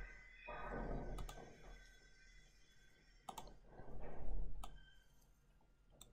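A few sharp, scattered clicks of a computer mouse, with two short soft hushing noises between them, the louder one about four seconds in.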